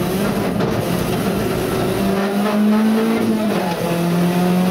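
Rally car engine heard from inside the cabin, pulling hard at high revs. Its pitch climbs about two seconds in, dips briefly near three and a half seconds, then holds steady.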